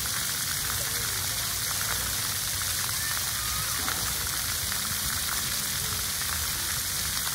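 Steady outdoor hiss, with wind rumbling unevenly on the microphone.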